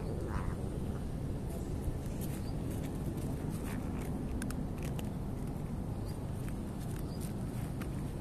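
Steady low background rumble with scattered faint clicks.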